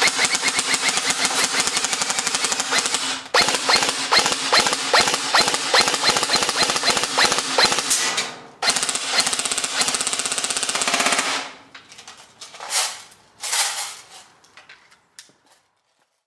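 G&G CMF-16K airsoft electric rifle firing on full auto: rapid clicking over a steady gearbox whine, in three long bursts of a few seconds each, then two short bursts near the end.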